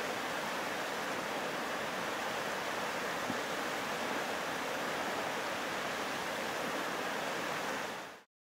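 Steady rushing hiss with no pitch and no speech, fading out quickly near the end.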